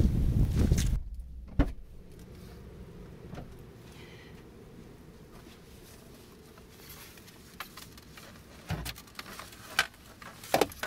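Footsteps crunching in snow with a loud low rumble for the first second, cut off suddenly; then quieter surroundings with a few scattered knocks and clicks as cross-country skis and poles are handled and loaded at a car.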